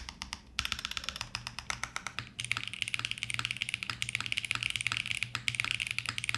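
Fast typing on a HIBI June mechanical keyboard (silicone tray-mounted case, FR4 plate, lubed CK x Haimu Pastel Peach switches, CYL Sloth keycaps): a quick, even run of key clacks with two short breaks in the first couple of seconds. It sounds solid rather than dampened, despite the silicone case.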